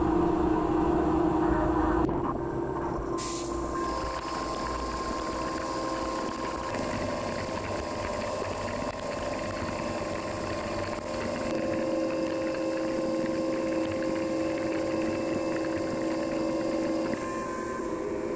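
Mazak Integrex mill-turn machine running an OD roughing cycle under flood coolant: the spindle turns a large part while the turning tool cuts, giving a steady machine hum with several held tones. It drops a little in level about two seconds in.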